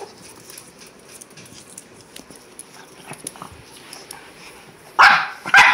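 Pug giving two loud, short barks in quick succession near the end, after a stretch of faint clicking and rustling.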